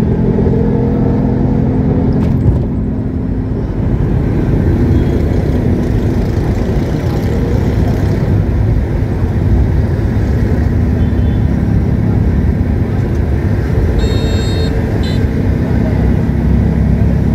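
Nissan car with a 1300 cc engine heard from inside the cabin, driving slowly in traffic: a steady low engine hum with road noise. Two short high-pitched tones sound near the end.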